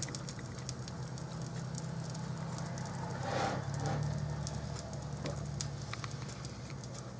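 Faint scattered crackling and popping of hot grease left from browning the patties, over a steady low hum. About three and a half seconds in, a short scraping shuffle as the ceramic crock pot insert is moved on the counter.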